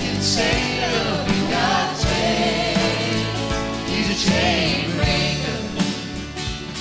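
A church choir and band performing a gospel-rock song: voices singing without clear words over held instrumental chords and steady drum beats.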